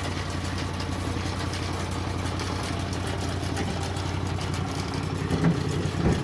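Sawmill engine idling steadily while the cut is set up, with two brief louder knocks near the end.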